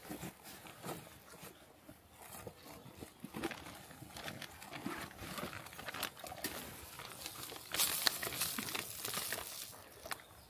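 Clear plastic bag crinkling and rustling in gloved hands, with light knocks and clicks, as a Sherman live trap is tipped into it to shake out a captured striped field mouse. The rustling is loudest about eight seconds in.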